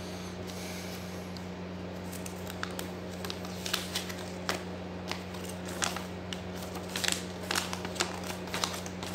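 Paper instruction sheet being unfolded and handled by hand: a run of sharp crinkles and crackles starting about two seconds in. A steady low hum runs underneath.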